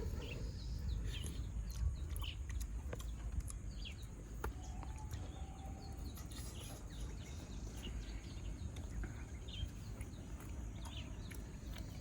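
Outdoor ambience: scattered short bird chirps over a steady low rumble, with a few sharp clicks.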